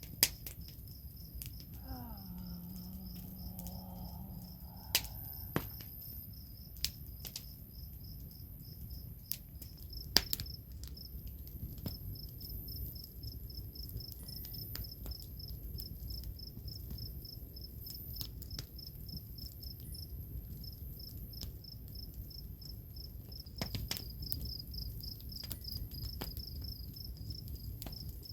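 Crickets chirping in a steady, fast-pulsing high trill, with scattered sharp clicks and a brief low pitched sound about two seconds in.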